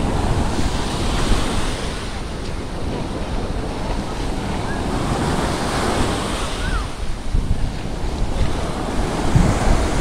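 Small waves breaking and washing up onto a sandy beach, the surf swelling and ebbing, with wind buffeting the microphone.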